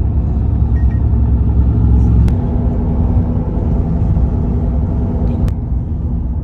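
Steady low rumble of a car driving on a concrete road, heard from inside the cabin: tyre and engine drone. A sharp click comes about two seconds in and another about five and a half seconds in.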